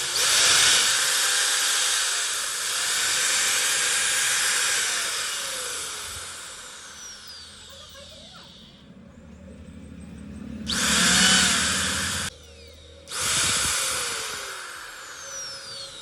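Polymak 801 electric grinder running in three bursts, a high whine over hiss. Its pitch winds up as the motor spins up and falls away as it coasts down after each switch-off. The second run cuts off suddenly.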